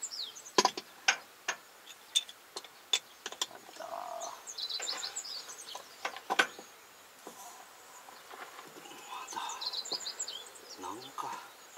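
Sharp metal clinks and knocks of hand tools on a tractor's crawler track, several in the first few seconds and a louder one about six seconds in. Birds chirp now and then.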